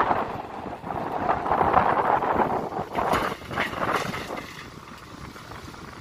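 JCB backhoe loader's diesel engine working as the machine digs, heard under wind buffeting the microphone, with a few short knocks about three seconds in.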